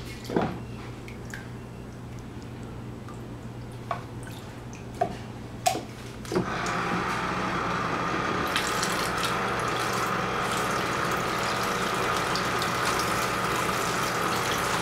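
A few light clacks of plastic toy cups and buckets knocking in a toy water table. About six seconds in, water starts streaming from the table's toy faucet and splashes steadily into the tub, a little louder from about halfway on.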